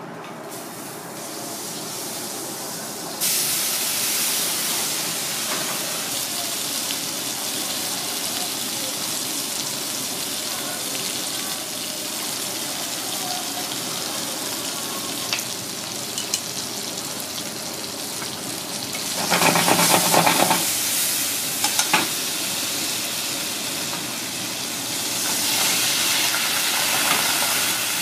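Diced tomato frying in hot oil in a wok over a gas burner: a steady sizzle that starts suddenly about three seconds in, as the food goes into the oil. A louder stretch with a few sharp clinks comes about two-thirds of the way through, and the sizzle swells again near the end.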